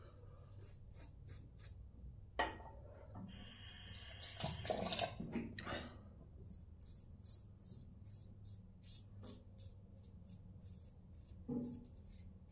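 Razor scraping through lathered stubble in a run of short, quick strokes, each a brief crisp scratch.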